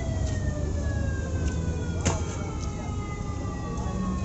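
A siren sliding slowly down in pitch over a steady low street-traffic rumble, with one sharp click about two seconds in.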